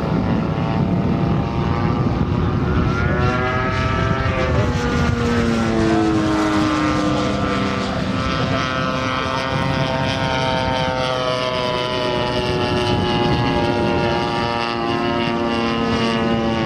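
Radio-controlled model plane's EME 35cc petrol engine and propeller running in flight, its pitch sliding down and back up several times as the model passes and changes throttle.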